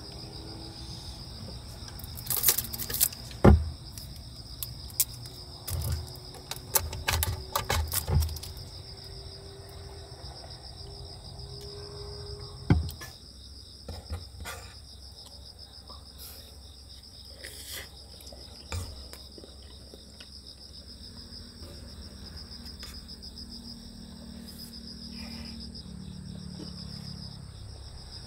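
Crickets chirping steadily throughout, high and pulsing. Several loud knocks and clicks in the first eight seconds and another about thirteen seconds in, from things being handled and set down on a wooden table.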